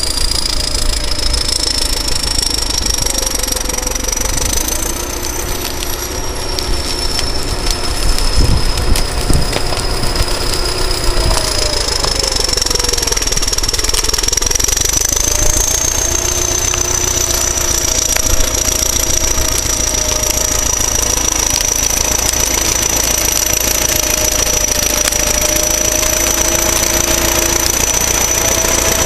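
Caterpillar D7 bulldozer's turbocharged diesel engine running, a high, steady turbo whistle sounding over the engine's rumble. The whistle climbs slightly about five seconds in and again around fifteen seconds, then holds.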